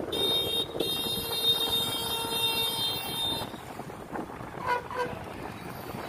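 Vehicle horn honking: a short toot, then a long steady blast of nearly three seconds, over road and wind noise from a moving vehicle. A couple of fainter short beeps follow near the end.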